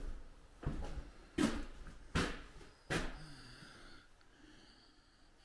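Slow footsteps across the floor of a derelict motel, about one step every three quarters of a second, four steps that stop about three seconds in.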